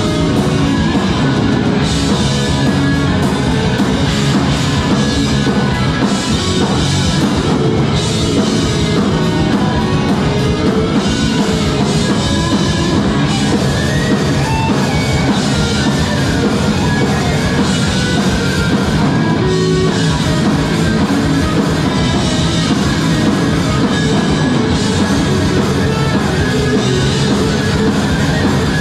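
Rock band playing live, with electric guitar and a drum kit, loud and without a break.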